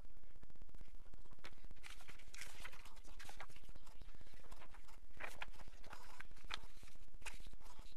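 Sheets of paper rustling and sliding on a table as they are handled and swapped, with several quick scrapes between about two and seven seconds in, over a steady low hum.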